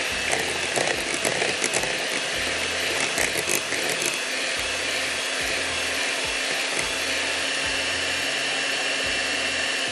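Electric hand beater running steadily, whirring as it beats cream in a bowl, with a few clicks in the first few seconds.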